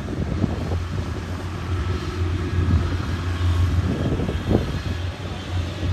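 Engine of a tracked rice-sack carrier running with a steady low drone as it crawls across the stubble, with a combine harvester working further back.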